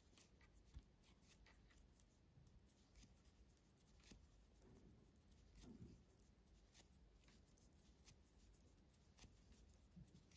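Near silence with faint, irregular light clicks of metal knitting needles as a row is purled stitch by stitch.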